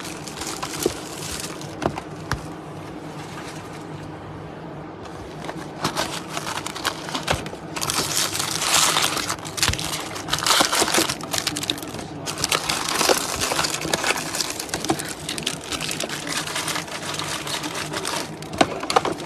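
Trading-card packs and cards being handled by hand: wrappers crinkling and tearing and cards rustling, with scattered clicks, busiest in the second half.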